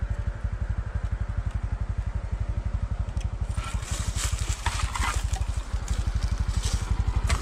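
Honda CT125's single-cylinder four-stroke engine idling with a steady, even pulse. From about three and a half seconds in, footsteps crunch and rustle through dry leaf litter.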